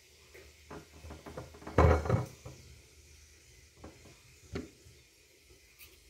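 Kitchen handling sounds as citrus fruit is taken off a glass plate and set down on a wooden cutting board: a loud cluster of knocks and clatter about two seconds in, then a couple of single knocks.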